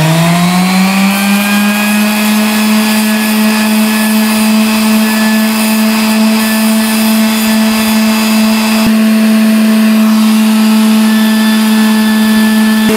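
Electric random orbital sander running with a steady hum, its 180-grit disc sanding the edges of a wooden fork pressed against it. It finishes winding up to full speed in the first second or so.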